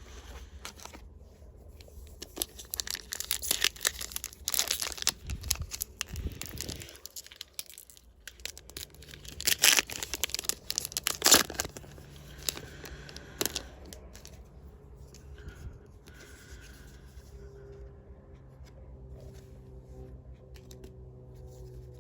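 Foil booster pack wrapper being torn open and crinkled, in two spells of sharp tearing and crackling, then quieter handling.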